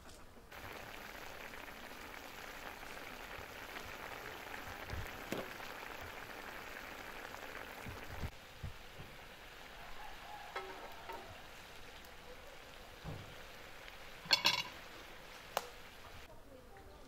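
Chicken legs frying in a bubbling sauce in a wide pan over an open fire: a steady sizzle that drops quieter about eight seconds in. A few sharp pops near the end are the loudest sounds.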